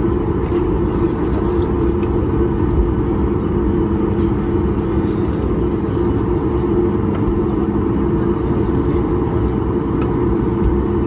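Steady vehicle noise: a constant low rumble with a faint steady hum, unchanging throughout.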